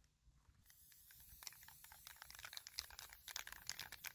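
Aerosol spray-paint can spraying with a faint steady hiss, mixed with quick rattling clicks of the can's mixing ball.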